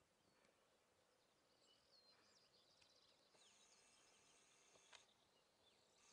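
Near silence, with faint high-pitched bird chirps and a thin trill about halfway through.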